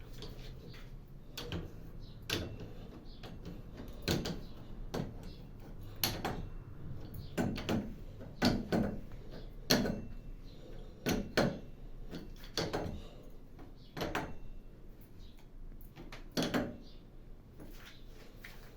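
A series of irregular sharp knocks and clacks, a dozen or so about a second apart, the loudest near the middle, from hard parts and tools being handled while a washing machine is set up.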